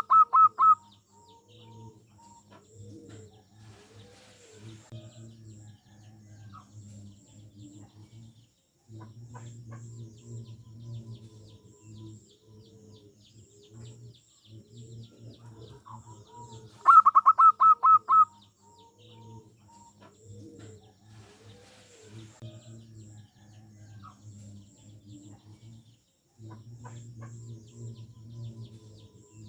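Zebra dove (perkutut) singing: two loud bursts of quick staccato cooing notes, one at the very start and another about 17 seconds in. Between them, soft low calls keep going, with faint high chirps of small birds.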